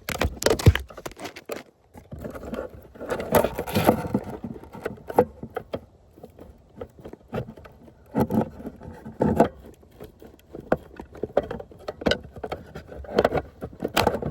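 Handling noise from a van's electrical circuit board and its wiring being pulled out: irregular clicks, knocks and scraping of plastic parts and connectors, in bursts.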